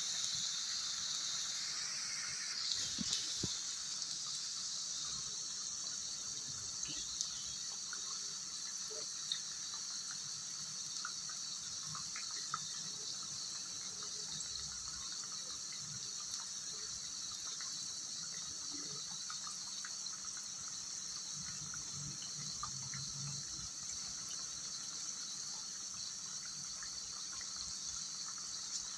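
Mashed-potato cakes deep-frying in hot oil in a pan: a steady sizzling hiss with scattered small pops and clicks.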